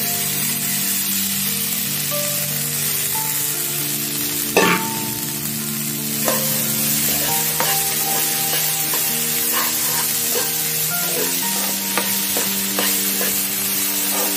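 Sprouted black chickpeas and sliced onions sizzling as they fry in a nonstick kadai, with a sharp clatter about four and a half seconds in, then a metal ladle stirring them, scraping against the pan again and again.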